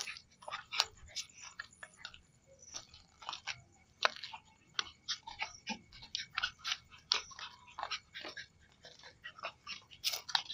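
Irregular crunching and scuffing on dirt ground, several short crunches a second, from people and two small Lhasa Apso dogs walking.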